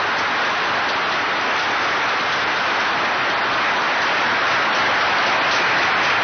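Large audience applauding steadily: a dense, even sound of many hands clapping.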